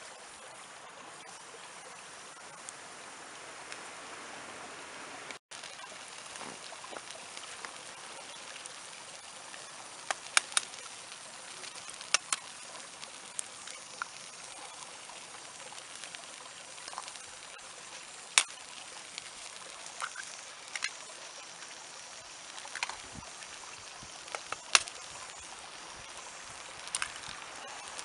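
Wood campfire crackling: a steady hiss with a dozen or so sharp pops and cracks scattered through, some in quick pairs.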